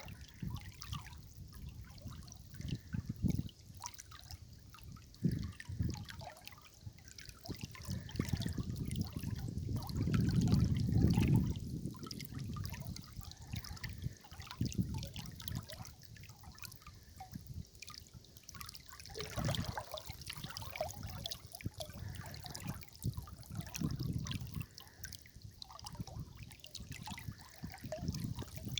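River water trickling and gurgling, with uneven low swells that rise and fall, the strongest about ten seconds in.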